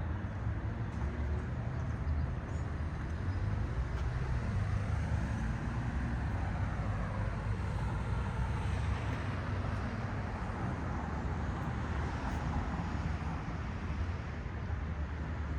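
Street traffic: a steady low rumble of cars, with one vehicle passing by around the middle.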